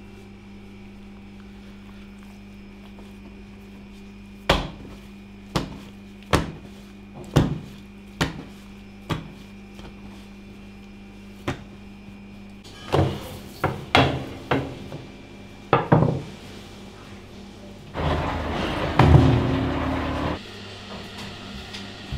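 Dough being worked by hand on a wooden worktable: sharp thuds against the board, about one a second at first and then in quicker clusters, over a steady low hum. Near the end a louder rough noise lasts about two seconds.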